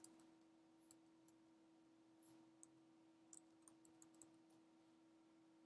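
Faint keystrokes on a computer keyboard: a few scattered taps, then a quicker run of several about three to four seconds in, over a faint steady hum.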